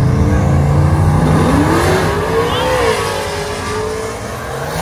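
Drag-racing pickup truck's engine launching down the strip: its pitch climbs steeply about a second and a half in, dips just before the three-second mark, then holds steadier and fades a little as the truck pulls away.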